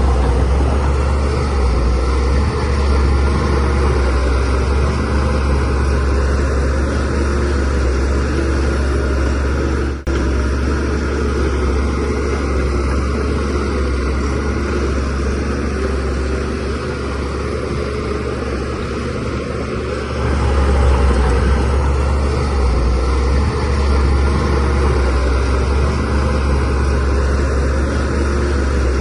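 DH17C3 bulldozer's diesel engine running under load with a steady low drone. It dips briefly about ten seconds in and works harder again from about two-thirds of the way through.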